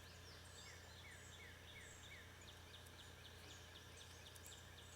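Faint wild birds singing: a run of about five short falling whistles, then a quick series of higher ticking chirps in the second half, over a low steady hum.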